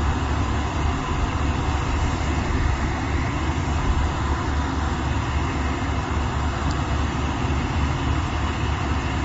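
A steady, even noise with a strong low rumble, unchanging throughout.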